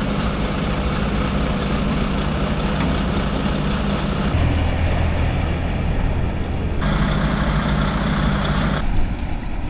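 Diesel engine of a Wirtgen W 150 cold milling machine running at idle, a heavy, steady engine hum. Its pitch changes abruptly about four seconds in and again near seven and nine seconds.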